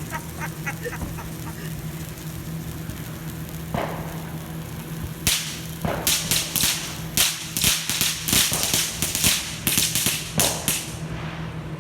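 Firecrackers going off: a single sharp crack about four seconds in, then a rapid, irregular string of sharp bangs lasting about five seconds.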